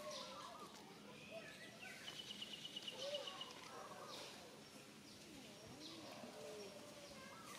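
Faint outdoor ambience: scattered short bird chirps over a steady hiss, with a rapid high trill lasting about a second and a half, starting about two seconds in.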